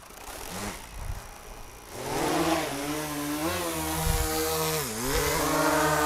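Autel EVO II Pro quadcopter's motors and propellers spinning up as the drone lifts off: a buzzing hum that turns loud about two seconds in, wavers in pitch and dips briefly near the end, then holds steady.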